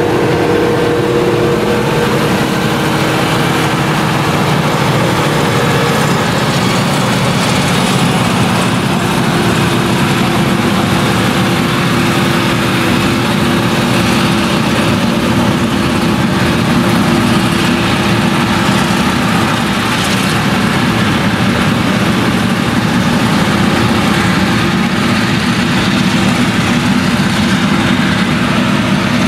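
Claas Jaguar 970 forage harvester with its MAN V8 engine working under load as it chops standing maize, a loud steady drone with the rush of the chopper and crop spout. A second engine tone from a vehicle close by stops about six seconds in.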